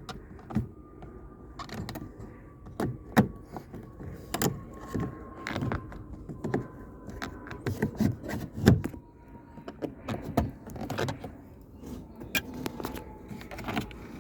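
Irregular plastic clicks, knocks and rattles as a trim piece on a 1999 Honda Prelude's door panel is pried open by hand with a tool.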